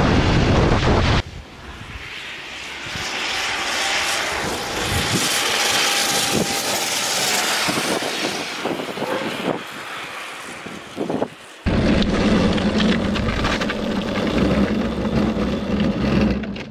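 Electric go-kart with a DC motor driving on asphalt. For the first second there is loud wind buffeting and tyre rumble from on board; then the kart's whine and tyre noise swell and fade as it passes. About twelve seconds in, it is on board again, with a steady low hum under the wind noise.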